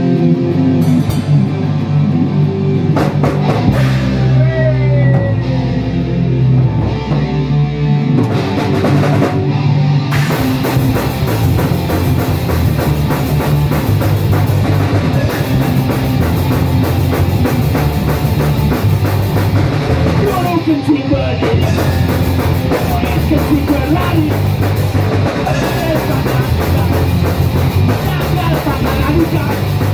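Live rock band playing: electric guitars, drum kit and a man singing. The drums and cymbals come in at full band about ten seconds in.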